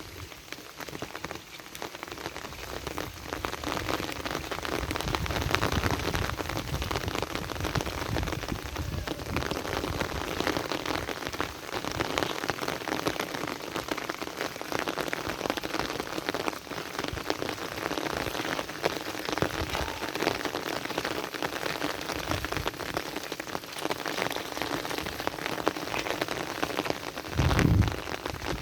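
Heavy rain falling steadily, a dense hiss of many drops. A brief low rumble rises out of it near the end.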